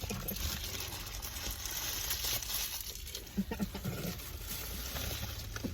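Paper sandwich wrapper rustling and crinkling as a sandwich is handled and opened, with soft scattered clicks.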